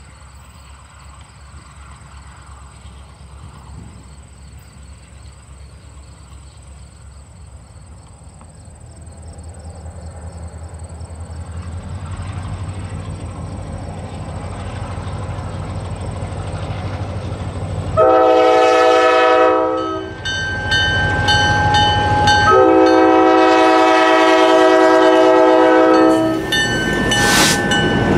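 Freight-train diesel locomotives approach, their low engine rumble growing louder from about a third of the way in. The lead locomotive then sounds its multi-chime air horn twice, a blast of about two seconds and then a longer one, as the train draws near with wheels running on the rails.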